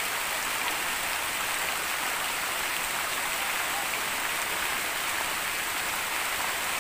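Steady rush of a shallow stream running over rocks: an even hiss that doesn't change.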